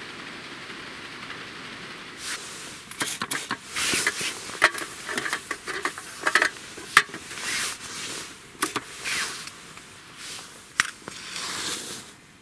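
Camp gear being handled at a table: rustling, clicks and knocks, with short scratchy bursts. Near the end a wooden match is struck and flares, to light a tissue soaked in disinfectant spray on the ashes of a fire box.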